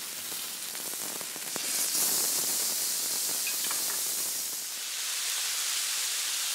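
Strips of pork belly sizzling on a hot grill pan as they are turned with metal tongs; the sizzle swells louder about two seconds in and stays steady.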